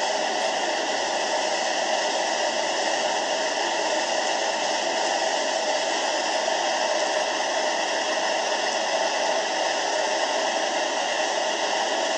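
Steady, even rushing of tsunami floodwater streaming past the shore, with no let-up.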